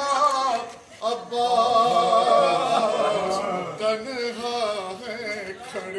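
Men's voices chanting a noha, a Shia lament sung without instruments. A short pause about a second in is followed by a long held, wavering phrase.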